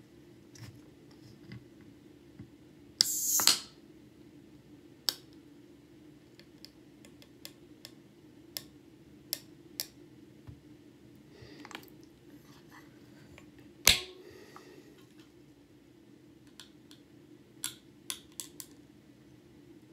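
Aluminium can of sparkling water cracked open about three seconds in: a sharp click of the tab and a short fizzing hiss of released carbonation. Scattered light clicks and taps of fingers on the can follow, with one sharp click about fourteen seconds in.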